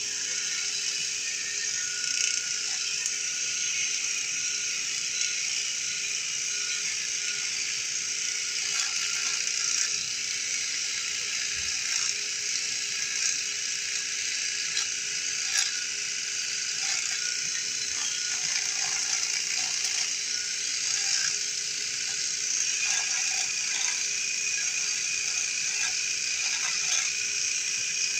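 ENCHEN Blackstone 3 electric shaver running steadily, its pop-up trimmer cutting stubble on the neck and chin, with small scattered crackles of hairs being cut.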